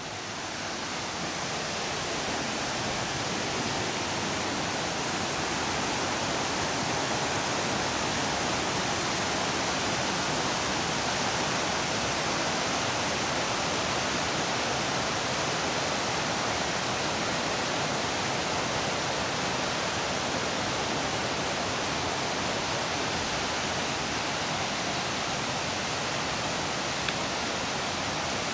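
Seasonal stream running full and cascading over rocks: a steady, even rush of water.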